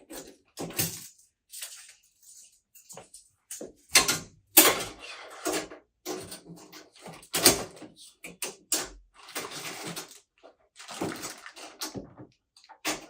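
Irregular handling noises: sharp clicks and knocks mixed with short scraping sounds, several separate bursts with quiet gaps between them.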